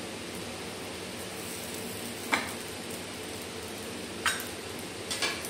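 Three short taps and knocks, about two seconds in, four seconds in and near the end, as pieces of dosa are moved about on a disposable paper plate, over a steady hiss.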